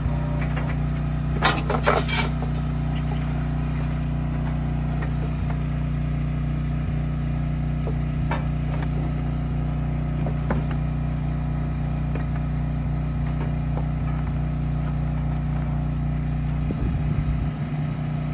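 An engine running steadily, with a short cluster of metal clanks from the steel cattle chute about a second and a half in.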